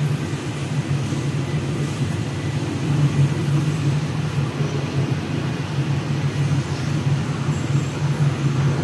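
Vacuum blower of a CNC knife-cutting machine running steadily, a low even drone.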